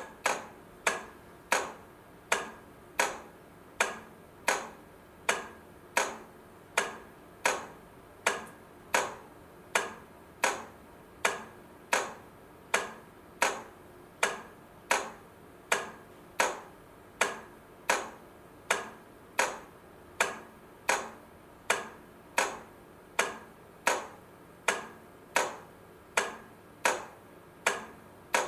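Railway level crossing light flasher clicking steadily as it alternates the lamps, a sharp click with a short ring about one and a half times a second.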